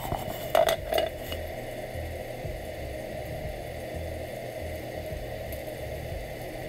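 Trumpet mushrooms frying in a cast iron skillet with a steady sizzle. A few sharp knocks come in the first second or so.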